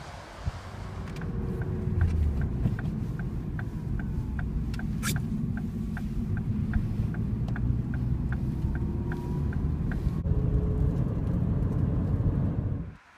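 Car cabin noise while driving: a steady low engine and road rumble, with a turn-signal indicator ticking about three times a second until about ten seconds in. The rumble cuts off suddenly near the end.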